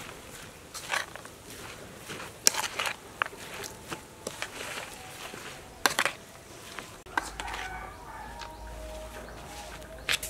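A metal spoon scraping and clinking against a stainless steel bowl as a moist shredded-vegetable wonton filling is mixed, in scattered sharp clicks and short scrapes. From about seven seconds in, chickens cluck in the background over a low hum.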